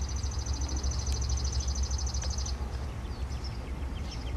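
A songbird's fast, even, high-pitched trill that stops about two and a half seconds in, followed by a few faint high chips, over the steady low rumble of an approaching diesel freight train.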